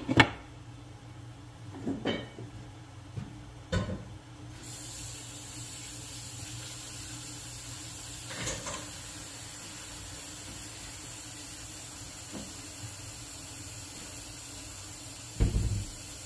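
A glass lid is set on a frying pan with a clank, followed by a few light knocks. Then ground pork sizzles under the lid as a steady hiss, with a low thump near the end.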